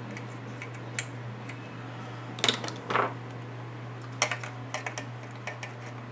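Small hand tools clicking and clinking against the metal chassis and wire leads of an antique camera, irregular taps with the loudest few about halfway through, over a steady low hum.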